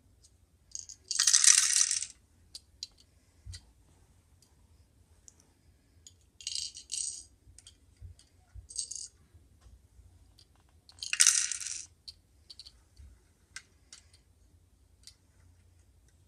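Plastic Lego toy garbage truck being handled and turned: short bursts of rattling from its loose plastic parts, the loudest about a second in and again about eleven seconds in, with scattered small clicks between.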